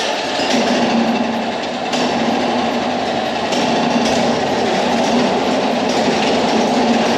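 Steady running noise of a moving vehicle, even and unbroken, with a constant low hum under it.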